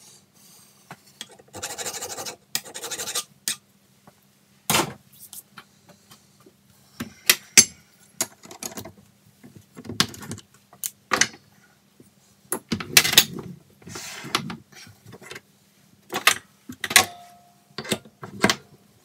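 A few rasping strokes of a hand file on stainless steel work held in a lathe chuck. These are followed by a string of metal clinks and clanks as a spanner is worked on the tool post and tools are handled, over a faint steady hum.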